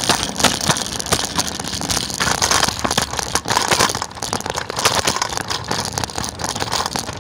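Riding a scooter along a concrete sidewalk: noise rushing over the phone's microphone, with a constant irregular rattle and clicking from the scooter and its wheels on the pavement.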